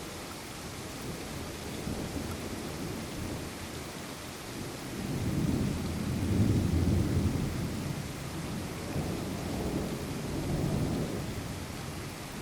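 Steady rain falling, with a low rolling rumble of thunder that builds about five seconds in, peaks, and swells again a few seconds later before easing off near the end.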